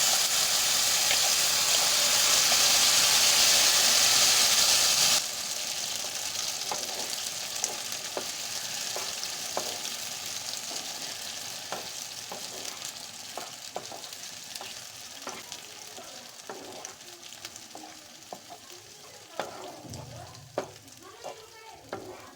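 Hot oil tempering of mustard seeds, curry leaves and garlic sizzling loudly as gongura chutney is added, dropping off suddenly about five seconds in. A fading sizzle follows under a spoon stirring and scraping the pan, with short ticks and knocks.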